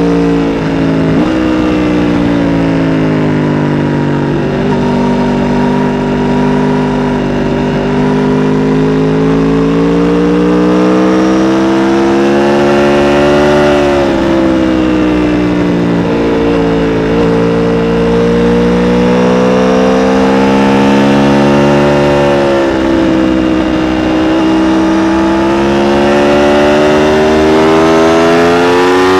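Aprilia RSV4 RR's V4 engine running through its stock exhaust, loud and steady. The engine note climbs gradually and drops abruptly about three times.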